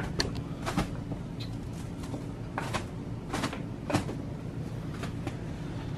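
Plastic cling wrap crackling in a handful of short, sharp crinkles as it is pulled and pressed around a mattress, over a steady low hum.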